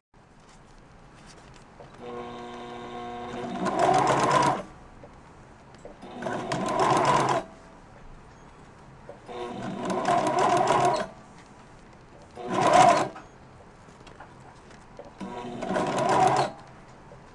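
Sewing machine stitching upholstery vinyl in five short runs with pauses between. Each run starts slower and speeds up, the first one most gradually.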